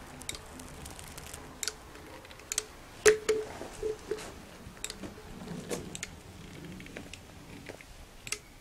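A caulking gun being squeezed to lay a bead of construction adhesive: irregular clicks from the trigger and plunger rod, some with a short squeak, the loudest cluster about three seconds in.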